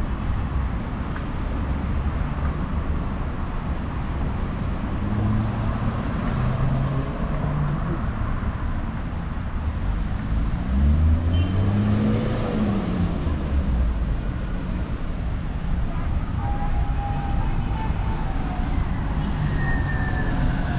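City street traffic: a steady rumble of passing cars. About halfway through, one vehicle passes close, its engine note rising and then falling.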